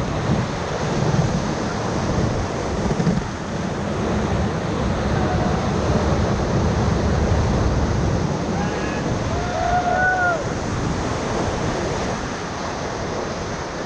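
Rushing whitewater of a river rapid churning around a raft, with wind buffeting the microphone.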